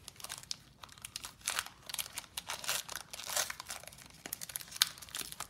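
Foil wrapper of a 2016 Panini Crown Royale football card pack crinkling and tearing as gloved hands work it open. It comes as a run of quick crackles, with one sharp crackle near the end.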